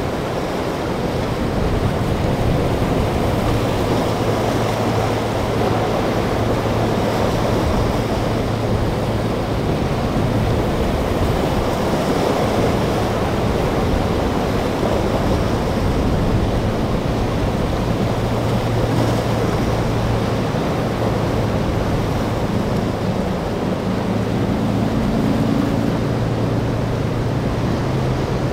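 Rough surf and wind noise with the steady low hum of a large sportfishing boat's inboard engines as it runs through choppy, breaking waves.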